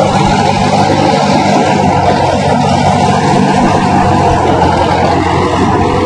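New Holland 3630 tractor's three-cylinder diesel engine running steadily under load as it pulls a plough deep through dry soil.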